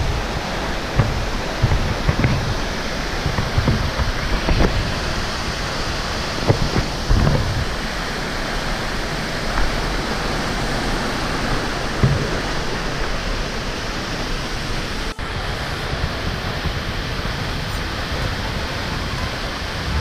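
Tall waterfall plunging onto boulders: a steady, loud rush of falling water, with scattered low thumps underneath. The rush breaks off for an instant about fifteen seconds in.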